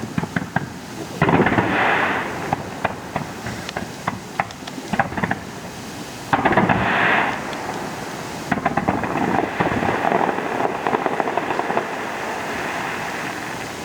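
Fireworks display: scattered sharp cracks and crackling from exploding shells. Two louder bursts of about a second each come about a second in and about halfway through, and the crackling grows denser after that.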